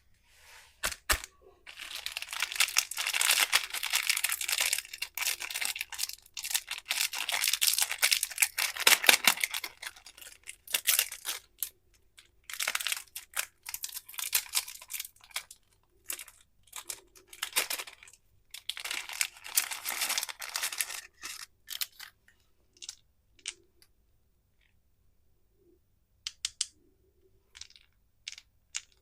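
Candy wrappers crinkling and tearing as sweets are unwrapped, in dense spells of rustling with short pauses between them, then a few scattered clicks and taps near the end.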